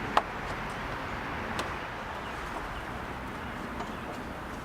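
A sharp click as the motorcycle's plastic front body panel pops into its rubber grommet, then a fainter click about a second and a half later, over steady background hiss.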